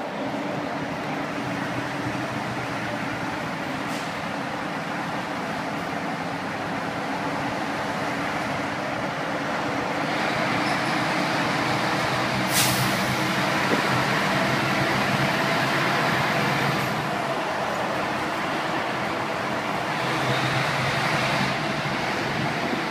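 A vehicle driving through a road tunnel, heard from inside the cabin: steady engine and tyre noise that grows louder for a stretch in the middle, with one short click about twelve seconds in.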